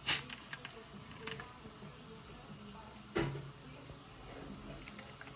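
Plastic soda bottle of Coca-Cola opened with one short, sharp hiss of escaping gas, then a single knock about three seconds in.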